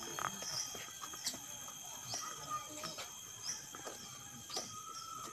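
Birds chirping, a short rising chirp repeating about once a second over a steady high hum, with light footsteps on paving.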